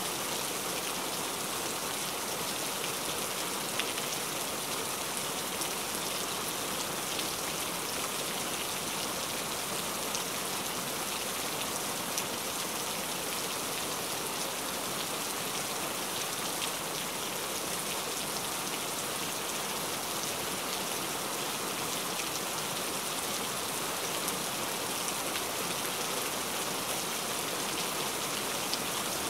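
Heavy rain falling steadily: an even hiss of rainfall with small drop impacts scattered through it.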